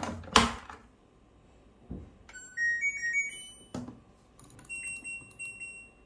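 LG TROMM front-loading washing machine: the detergent drawer slides shut with a knock, then the machine's electronic power-on chime plays a short melody of stepped tones, followed by a click and a run of short beeps as the programme dial is turned.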